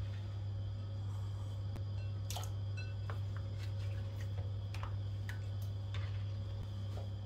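Light, irregular taps and clicks of raw potato wedges being picked off a wooden cutting board and dropped into a glass bowl of water, over a steady low hum.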